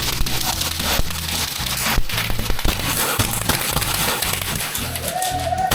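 Background music with a heavy, stepping bassline, over a noisy hiss with several sharp clicks.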